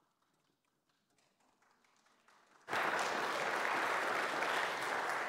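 Near silence, then about two and a half seconds in a congregation starts applauding, a steady even clapping.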